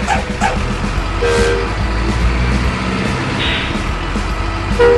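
A heavy diesel truck engine running steadily, laid over music, with a short horn toot about a second in and a brief hiss a little past the middle.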